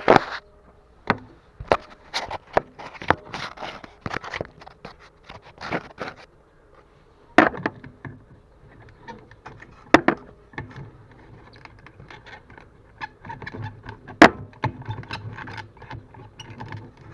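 Irregular sharp clicks, knocks and scrapes of hand work at a car's fuel pump as a fuel hose is pulled off its fitting after its clamp is removed.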